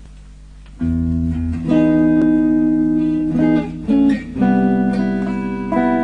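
Background music of plucked guitar notes, starting about a second in after a faint steady tone.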